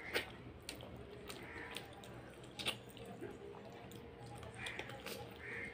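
Close-up wet chewing and lip smacking from a mouthful of rice, dal and fish eaten by hand, with many sharp wet mouth clicks, the loudest just after the start and about two and a half seconds in.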